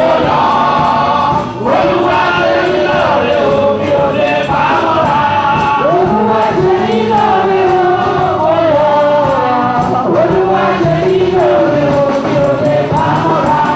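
A gospel song sung by a choir, led by voices singing into microphones and heard through the church loudspeakers.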